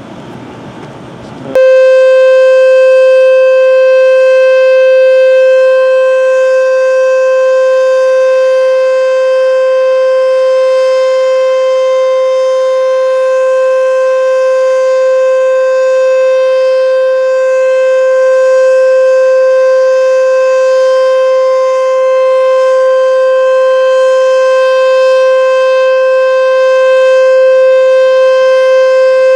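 H.O.R Super Sirex outdoor warning siren sounding its full alert: one steady single tone held at a constant pitch with strong overtones, very loud. It cuts in abruptly about a second and a half in, already at full pitch, after a moment of quieter background noise.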